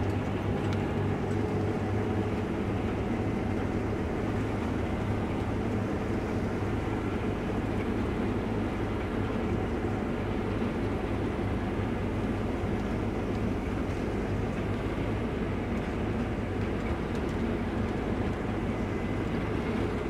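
Combine harvester with a hydrostatic drive running steadily while cutting wheat in the hills, an even engine and machinery drone.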